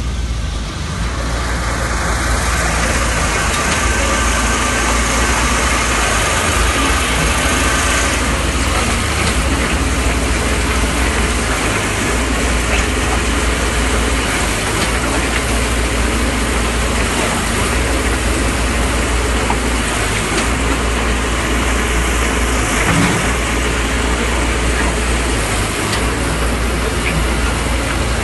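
Concrete mixer pump running: a steady mechanical drone with a deep hum underneath and a few faint clinks.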